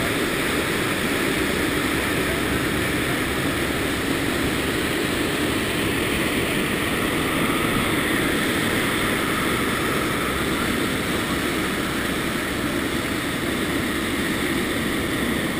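Steady, loud noise inside a C-130 Hercules cargo hold in flight: its four turboprop engines running and air rushing past the open rear ramp, unchanging throughout.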